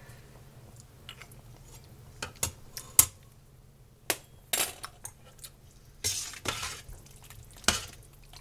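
A metal spoon clinking and scraping against a stainless steel cooking pot, in scattered separate knocks, with one sharp clank about three seconds in.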